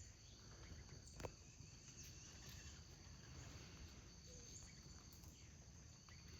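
Faint, steady high-pitched drone of insects, with one sharp click about a second in.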